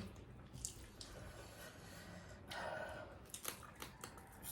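Quiet, wet mouth sounds of someone eating: scattered small clicks and smacks of chewing food, with a brief soft noisy shuffle about two and a half seconds in.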